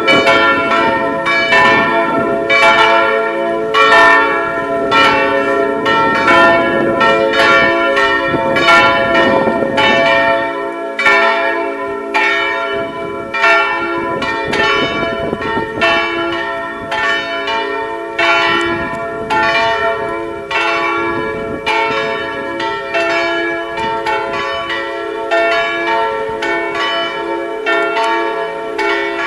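Church bells swinging in an open bell frame, ringing together in a steady run of overlapping strokes, each stroke's tone hanging on under the next.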